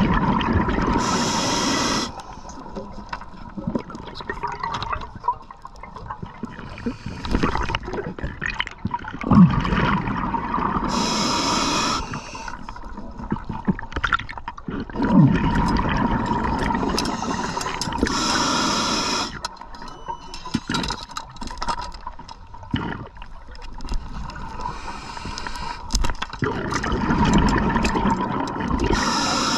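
Underwater sound heard through a camera housing: a diver's breath bubbles rush out in bursts a second or two long, every several seconds, with bubbling and gurgling in between.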